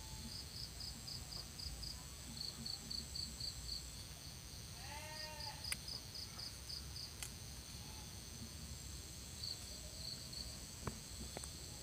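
Insects chirping in a steady rhythm of high pulses, about five a second, in runs with short gaps, over a thin continuous high buzz. About five seconds in there is one brief pitched call.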